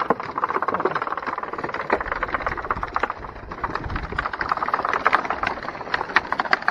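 Live fish flapping and slapping in a fish-trap net as it is hauled up out of the sea, making a rapid, irregular patter of wet slaps and taps. A low rumble runs underneath for a couple of seconds in the middle.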